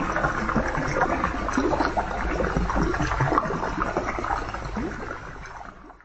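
Pond water trickling and gurgling with irregular bubbling, fading out near the end.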